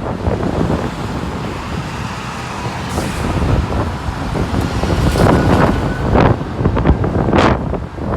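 2006 Orion V diesel transit bus running on the street, with wind buffeting the microphone and a brief hiss about seven seconds in.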